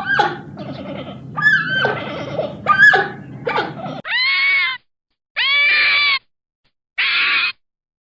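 Two animal recordings in succession. First come short yelping and whining calls that bend in pitch over a low background hum. From about four seconds in there are three long, arched calls of about three-quarters of a second each, separated by silence.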